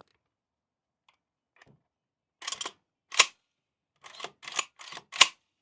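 JTS M12AR 12-gauge shotgun's AR-style action being worked by hand in a functions check: metal sliding and rattling, then a sharp metallic clack, twice, the second about two seconds after the first.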